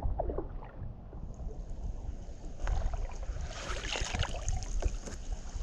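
Kayak on a river: water splashing and a few light knocks against the hull, with a steady low rumble of wind on the microphone. A short splashy patch comes about two-thirds through.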